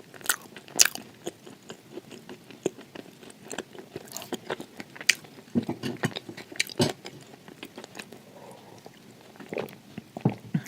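Close-miked biting and chewing of crunchy dry baked clay: irregular sharp crackles and crunches, with a few louder bites scattered through.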